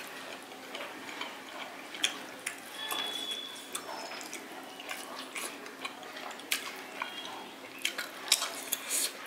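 Close-up eating sounds: wet chewing and mouth smacks with scattered small clicks.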